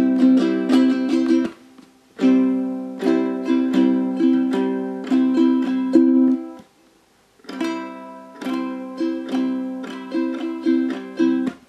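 Low-G ukulele played unaccompanied in three short phrases of quick picked and strummed notes, with a pause about two seconds in and another about six and a half seconds in.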